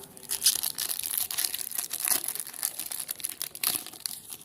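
Trading-card pack wrapper crinkling and tearing as it is opened by hand: a dense run of crackles that dies away near the end.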